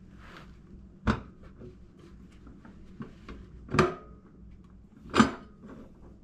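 Clunks and clicks of disposal and drain-pipe parts being handled and fitted together: three sharp knocks, about one, four and five seconds in, the last the loudest, with lighter clicks between them.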